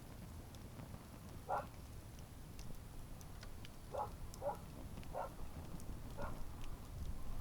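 Outdoor wood campfire burning, with faint sharp crackles over a low steady rumble. Five short, louder, duller sounds of a lower pitch come at irregular intervals, one early and four in the second half.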